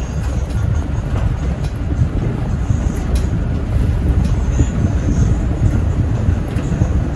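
Interior sound of a 2014 Hyundai New Super Aerocity city bus on the move, its Euro 5 engine and road noise making a deep, steady rumble that grows a little louder as it goes.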